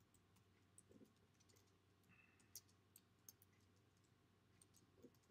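Faint, scattered keystrokes on a computer keyboard as a line of text is typed.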